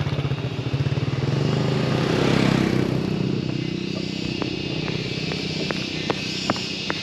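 Motorcycle engine running with a steady pulsing beat. A louder rush swells and fades about two to three seconds in, and a few sharp irregular clicks come through over the engine in the second half.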